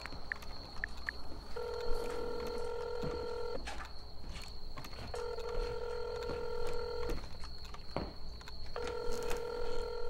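Telephone ringback tone: a call ringing out, three steady two-second rings with short gaps between them, waiting to be answered. A faint steady high whine runs under it.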